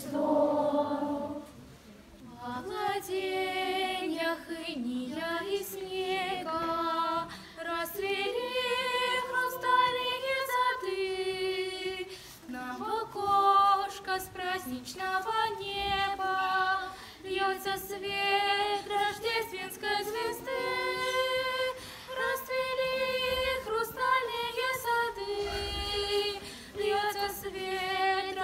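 Children's choir singing a Christmas song unaccompanied, with a brief break in the singing about two seconds in before it resumes.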